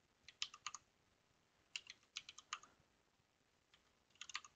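Computer keyboard typing, faint: three quick bursts of key taps with short pauses between them.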